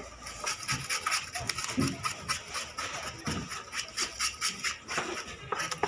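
Large knife cutting pomfret into slices on a wooden chopping block: irregular clicks, scrapes and knocks of the blade on the block and fish, with a few heavier thumps.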